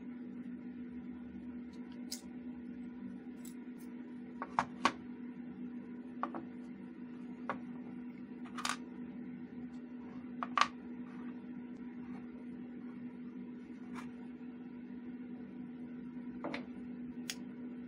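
Metal parts of a homemade single-barrel 4 mm Flobert derringer clicking and clinking as it is taken apart by hand, about a dozen irregular clicks, the loudest a pair about four and a half seconds in and one about ten and a half seconds in. A steady low hum runs underneath.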